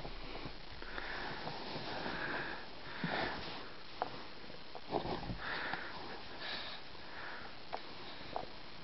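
A Shih Tzu sniffing in short, repeated bursts close to the microphone, with a few soft clicks in between.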